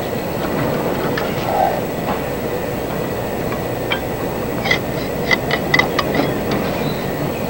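Metal hand tools clicking and clinking on a car engine, a run of about a dozen light, ringing metallic clicks over two seconds in the second half. A steady rushing background noise runs underneath.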